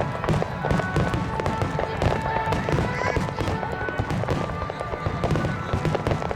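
Aerial fireworks bursting in quick, overlapping succession, a dense string of booms and crackles, with music playing under them.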